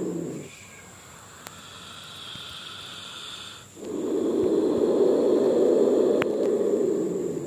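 King cobra hissing in low growls: one long hiss dies away just after the start, a quieter, higher hiss follows, then a second long, loud low hiss of about four seconds starts about halfway through.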